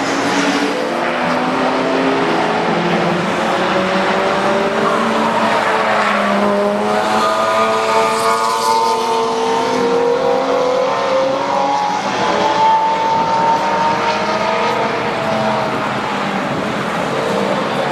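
Race car engines running hard on a circuit, with several engine notes rising and falling and overlapping as cars pass.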